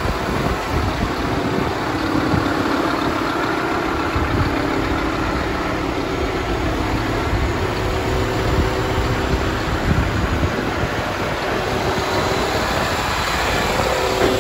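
Scania P280 truck's five-cylinder diesel engine idling steadily.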